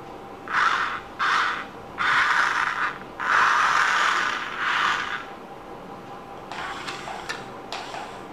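Small electric motor and plastic gearbox of a wired remote-control toy crane truck whirring in four stop-start bursts of half a second to two seconds, then a few light clicks near the end.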